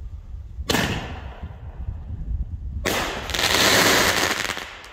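Rambo Kid firework: a sharp bang about two-thirds of a second in, then about two seconds later a dense, intense crackle of crackling stars that lasts nearly two seconds and is the loudest part.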